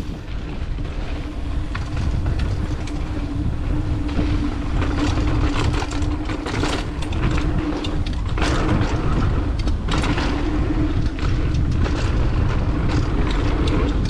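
Mountain bike descending a rough dirt trail: tyre rumble and wind on the microphone, with frequent knocks and rattles from the bike over bumps and a steady buzzing tone.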